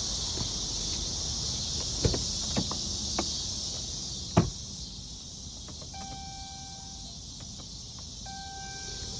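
Crickets trilling steadily, with a few sharp clicks and knocks in the first half, the loudest about four and a half seconds in. Near the end come two steady electronic beeps, each about a second long.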